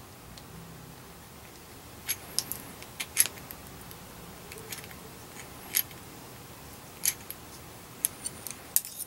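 A small hand blade trimming excess coax insulation tubing flush at a PL259 connector's reducer sleeve: scattered, irregular sharp clicks and snicks, starting about two seconds in.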